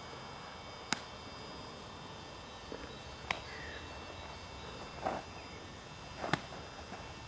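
Strikes and footwork of a Bajiquan form on a dirt path: four short sharp impacts, about one, three, five and six seconds in, the later two with a brief scrape of shoes on the dirt, over a faint steady outdoor hiss.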